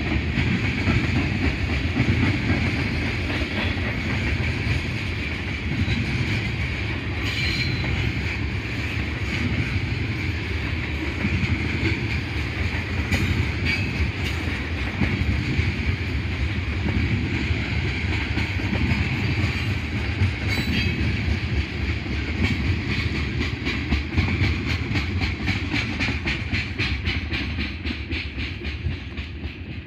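Freight train of tank cars rolling past: a steady low rumble with a high ringing tone over it. Scattered wheel clacks over rail joints become a quick, regular clickety-clack in the last several seconds.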